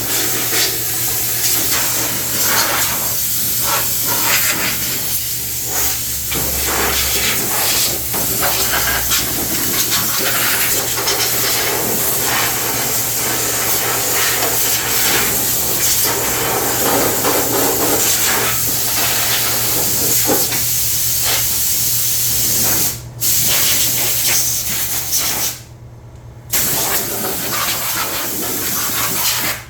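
Steady high-pressure spray hiss, cleaning caked debris off a zero-turn mower deck. It cuts out briefly twice near the end, then stops.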